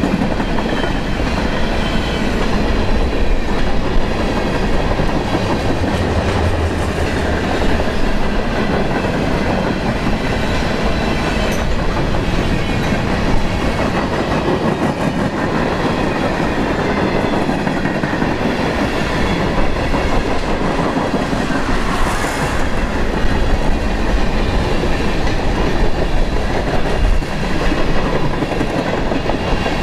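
A long freight train's cars rolling steadily past, their steel wheels running over the rails.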